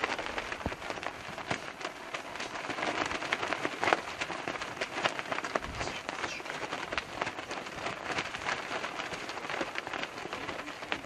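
Light rain pattering: many small, irregular ticks over a steady hiss.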